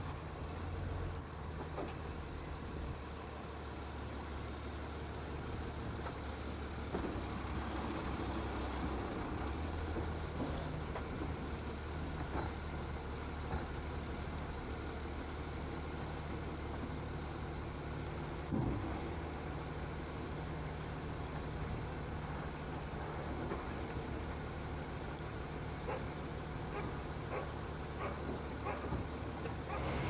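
Automated side-loader garbage truck's diesel engine running steadily, its note shifting as the hydraulic arm grips a trash cart and lifts it. A single sharp knock comes about two-thirds of the way through.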